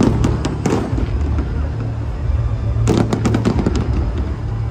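Fireworks going off overhead: a quick run of sharp bangs and crackles at the start, then another cluster about three seconds in, over a steady low rumble.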